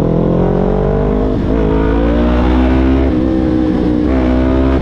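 Sport motorcycle engine running steadily under way, its note dipping briefly and recovering three times, about a second and a half, three and four seconds in.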